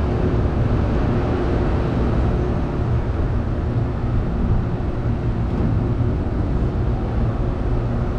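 Large Engineered Air make-up air unit running under load, its compressors and condenser fans making a steady drone with a low hum.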